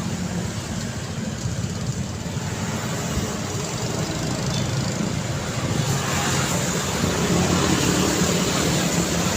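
Road traffic on a busy street: a steady mix of engine and tyre noise, swelling about six seconds in as a vehicle passes close.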